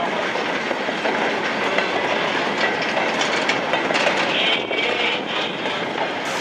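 Goods train of steel mineral wagons and a brake van rolling past, the wheels clattering over the rail joints, with a brief high squeal about four and a half seconds in.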